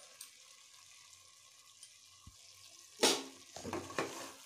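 Faint hiss of vegetable masala cooking in an open pot. About three seconds in, a metal ladle clatters into the pot and scrapes as the masala is stirred.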